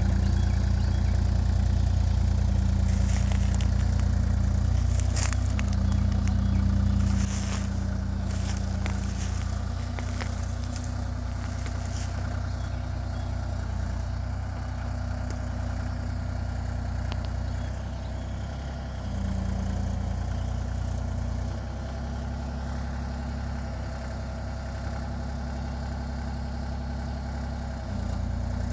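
Kubota KX033-4 compact excavator's three-cylinder diesel running steadily as it works, with sharp cracks and knocks for the first ten seconds or so. The engine gets quieter about seven seconds in and changes again about two-thirds of the way through.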